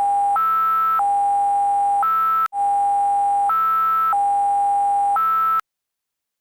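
Synthesized electronic alert tone, a buzzy hi-lo alarm that alternates between a lower tone held about a second and a higher tone held about half a second. The pattern plays twice with a short break between and cuts off abruptly.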